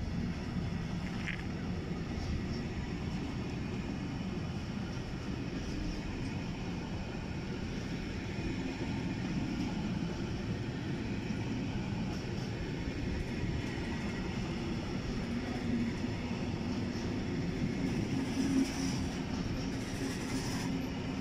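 Intermodal freight train's wagons rolling past: a continuous steady rumble of wheels on rail, with a low hum that grows stronger in the second half.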